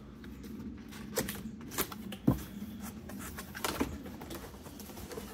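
Two cardboard boxes being opened by hand: packing tape pulled off and the cardboard flaps folded back, making a string of short crackling and rustling noises, the sharpest about two seconds in.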